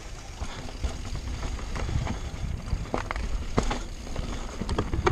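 Mountain bike rolling fast down a rocky dirt trail: a steady low rumble of tyres over the ground, broken by about half a dozen sharp clattering knocks as the bike rattles over rocks and roots.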